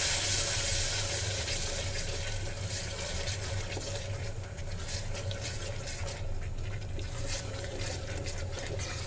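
Spice masala with freshly added tomato–green chilli purée being stirred with a spatula in an aluminium pressure cooker. A frying sizzle dies down over the first couple of seconds as the wet purée cools the pan. Then come wet squelching and repeated scraping of the spatula against the pot.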